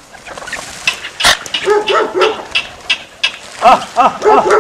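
A quick run of short, pitched animal calls, several a second, starting about three-quarters of the way through. Before them come scattered sharp clicks and taps, with one louder crack a little over a second in.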